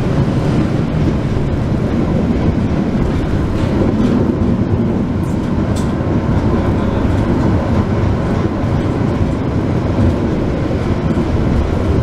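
Passenger train coach in motion, heard from inside the carriage: a steady rumble of wheels on the rails and the running coach.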